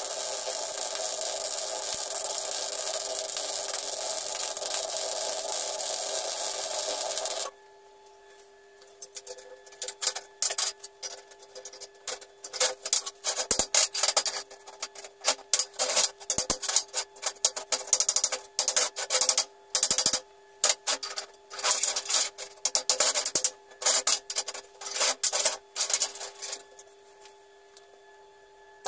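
MIG welding arc giving a steady hiss for about seven seconds, then stopping abruptly. After a short pause, a hand tool scrapes at the fresh weld on the steel plate in quick, irregular rasping strokes for most of the rest.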